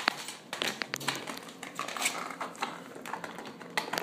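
A puppy biting and chewing on a small terracotta flower pot, its teeth knocking and scraping on the clay in a run of uneven clicks.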